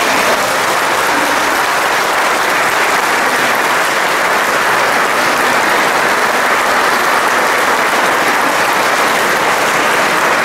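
Audience applauding, a dense, steady clapping with the performers on stage joining in.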